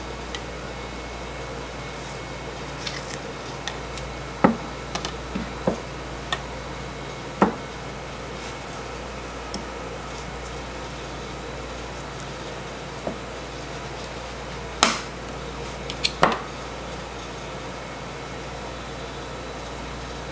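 A steady hum with a scattered handful of sharp knocks and clinks, the loudest two close together near three-quarters of the way through.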